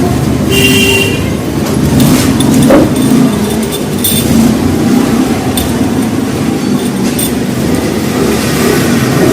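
Motorcycle engine running steadily, with a few short metallic clinks over it.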